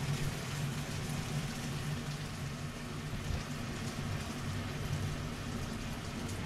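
Steady kitchen cooking noise: an even hiss over a low, constant hum.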